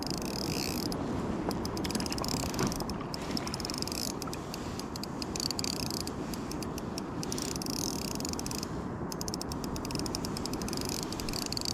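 Shimano Stradic spinning reel cranked steadily while reeling in a hooked squid: fine clicking from the reel comes in runs, over a steady hiss.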